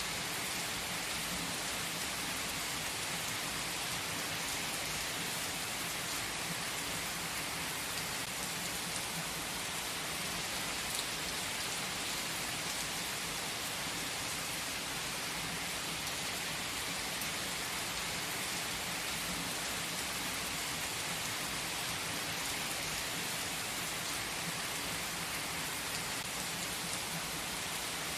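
Steady, even hiss like falling rain, with no breaks or changes in level.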